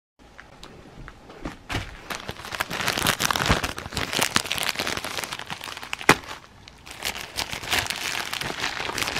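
Plastic mailer package crinkling and crackling as it is handled and torn open by hand, with a single sharp click about six seconds in.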